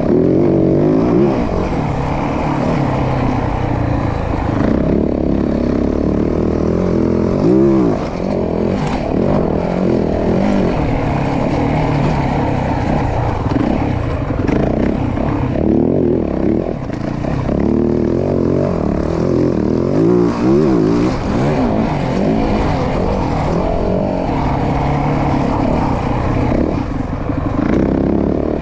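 Yamaha WR450F's 450 cc single-cylinder four-stroke engine under way. Its revs rise and fall again and again as the throttle is worked.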